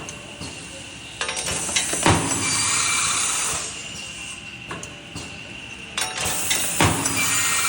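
Automatic aluminum processing machine running through its cycles: two stretches of louder machining noise over a steady high whine, each with a sharp metallic knock, and light metal clinks.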